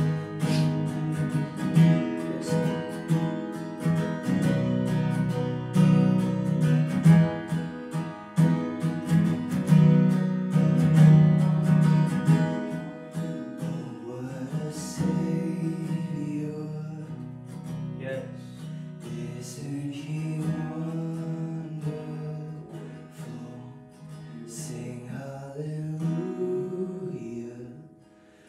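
Acoustic guitar strummed in chords, busy for the first dozen seconds and then thinning to sparser strokes, with a man singing softly over it in the second half.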